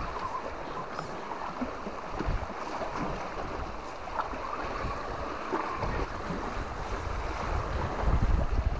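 Wind buffeting the microphone over the wash of sea waves on the rocks; the low wind rumble grows stronger in the last few seconds.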